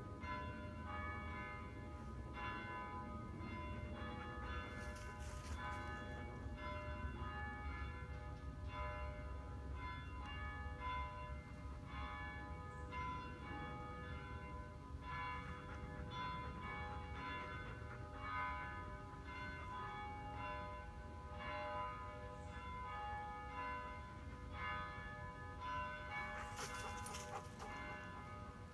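Church bells of Holy Hill basilica ringing a continuous peal, heard across the woods: stroke follows stroke about once or twice a second, each ringing on under the next.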